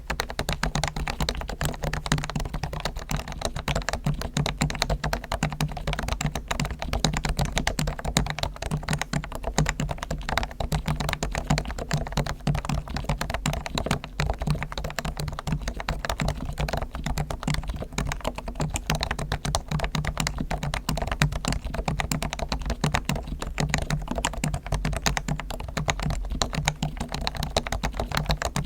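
Realforce R1 keyboard with Topre electrostatic capacitive switches being typed on quickly and continuously, a dense run of keystrokes. The switches are fully lubed with Krytox on springs and sliders, the stabilizers are lubed and tuned, and the case is dampened with foam.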